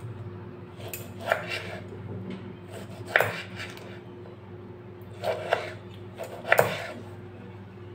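Kitchen knife cutting tomatoes into chunks on a wooden chopping board: sharp knocks as the blade comes down on the board, in twos and threes with pauses of a second or two between.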